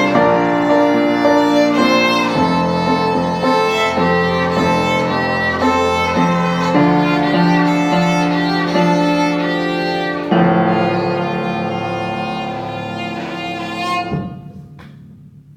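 Bowed string instrument playing the closing phrases of a pop-song arrangement in long sustained notes. It ends on a final note that stops about fourteen seconds in, leaving a brief ring in the room.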